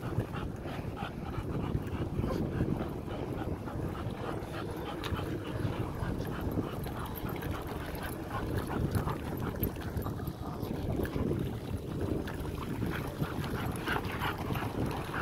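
A dog whining and yipping close by, in short irregular cries, while dogs splash through shallow seawater over a steady low rumble.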